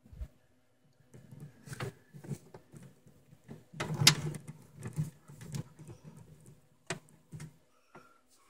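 Handling noise: irregular clicks, knocks and rustles as things are moved and touched inside a wooden cabinet, the loudest knock about four seconds in, over a faint steady hum.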